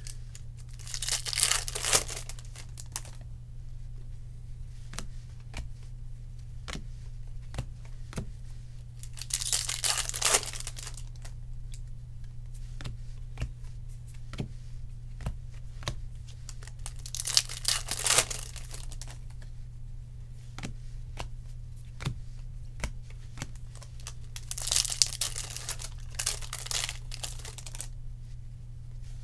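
Trading cards being handled and flipped through, with a stream of small clicks as cards are snapped and slid against each other. Four short bursts of crinkling and tearing, typical of foil card-pack wrappers being ripped open, come about eight seconds apart. A steady low hum runs underneath.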